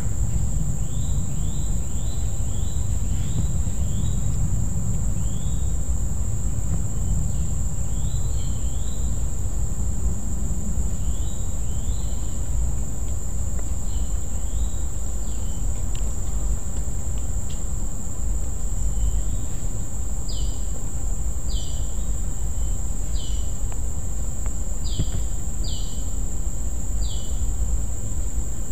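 Outdoor insect chorus: a steady high-pitched drone with short rising chirps repeating every second or two, louder in the second half, over a low rumble.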